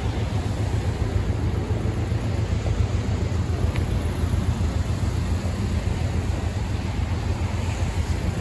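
Steady city street noise of motor traffic running past, with a low rumble underneath.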